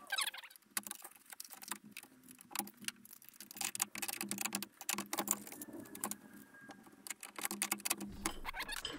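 Irregular small metallic clicks, taps and rattles of metal parts being handled and fitted by hand onto a circular saw as a beam cutter attachment is mounted.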